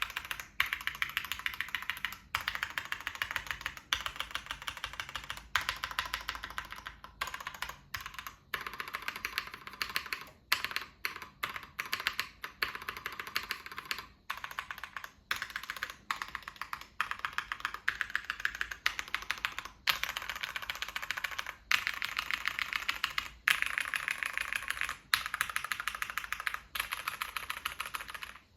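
Typing on a Matrix 1.2 mechanical keyboard with Cherry MX Black linear switches, a top-mounted aluminium half plate and GMK keycaps: fast, steady keystrokes in runs of a second or two, broken by short pauses.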